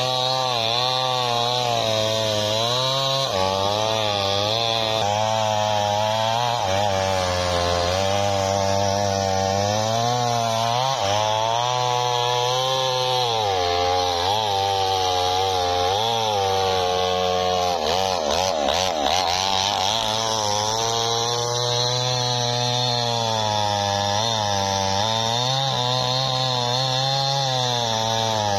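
Small two-stroke chainsaw running under load while it cuts through a large sengon log, its engine pitch rising and dipping as the chain bites into the wood, with a spell of quick pitch swings about two-thirds of the way through.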